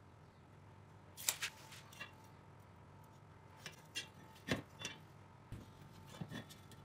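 Light clicks and metallic knocks from handling tools on a rusty square steel tube: a flat steel bar set down against the tube and a marker and tape measure being handled. The loudest is a knock with a dull thud about four and a half seconds in.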